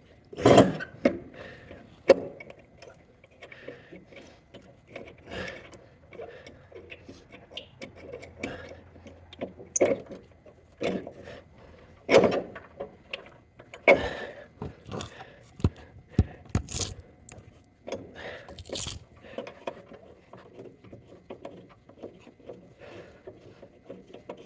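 Hand tools working on a mower-deck blade and its rusty mounting screw: irregular metal clinks, knocks and scrapes, a few of them sharp and loud.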